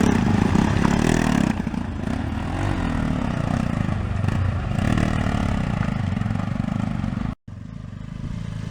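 Motorcycle engine running while ridden over a rough off-road track, its pitch rising and falling with the throttle. It drops in level about a second and a half in. Near the end the sound cuts out for an instant, then the engine carries on quieter.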